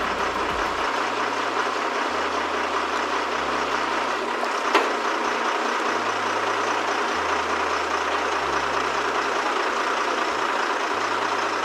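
Crane's engine running steadily as it hoists a motorboat out of the water in slings, with a single sharp click about five seconds in.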